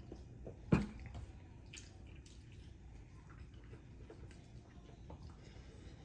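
Quiet eating sounds: faint wet clicks and smacks of chewing pizza, with one sharp knock under a second in.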